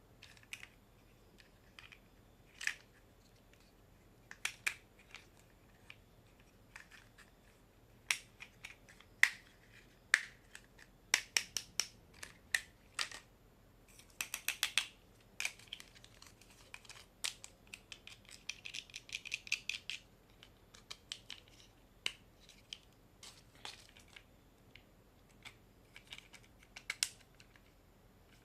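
Irregular sharp clicks and taps of small hard objects being handled, coming thick and fast through the middle, with a short scratchy stretch after that.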